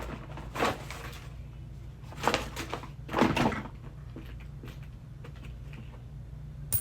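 A few short knocks and rustles of household things being handled, in three clusters over the first half, over a steady low hum.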